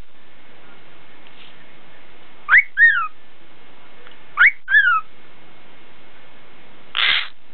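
Cockatiel whistling a short phrase twice, about two seconds apart: a quick upward sweep followed by a falling note. Near the end comes one short scratchy burst.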